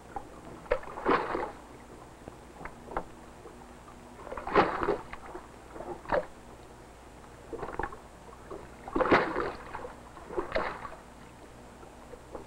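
Water splashing and slapping against a boat's hull in irregular surges, about one every one to two seconds.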